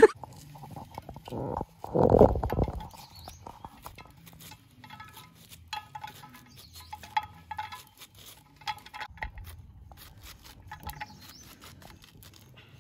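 A knife slicing a hand-held bunch of leafy greens into a metal pot: a quick, irregular run of crisp cutting clicks, with shreds dropping into the pot. A loud low rumble comes about two seconds in, before the cutting starts.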